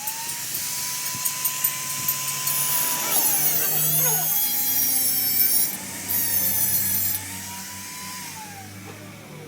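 Power tool working metal: a whine that slides up and down in pitch over a high hiss, dropping in level after about seven seconds.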